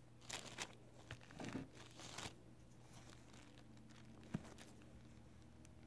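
Faint handling noises from a silicone nail stamper being worked in the fingers: a few soft rustling scrapes in the first couple of seconds, then one small sharp click a little past four seconds in.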